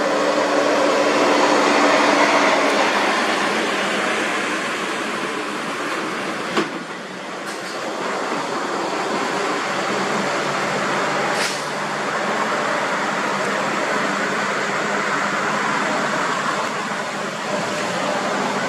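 Heavy diesel trucks running under load up a winding grade: a steady engine drone with tyre and road noise, broken by two sharp clicks about seven and eleven seconds in.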